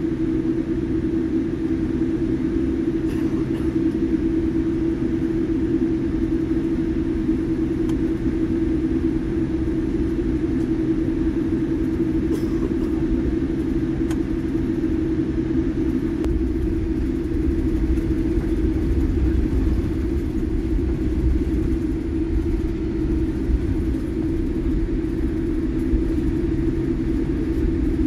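Boeing 787-8 Dreamliner heard from inside the cabin as it rolls on the ground: a steady engine hum over a low rumble from the wheels on the pavement, the rumble growing stronger about halfway through.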